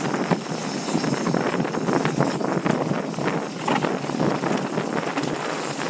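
Wind rushing over the camera microphone and the rattle and tyre noise of a Specialized Enduro mountain bike riding down a dirt trail, with frequent small knocks from the bumps.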